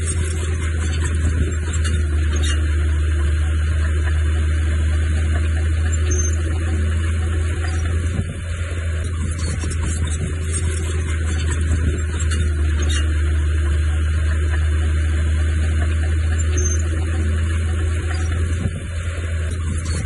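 Diesel engine of heavy earthmoving equipment running steadily, a deep continuous drone with brief dips in loudness about eight seconds in and near the end.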